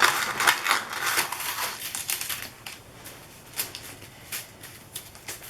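Stencil sheets being handled and shuffled: a quick run of clicks, taps and rustles, loudest in the first couple of seconds and then fainter scattered ticks.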